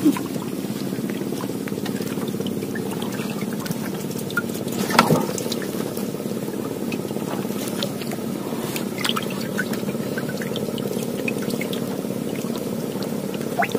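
Small boat engine running steadily at low speed, a low even hum, with water trickling and lapping around the hull and a few light knocks.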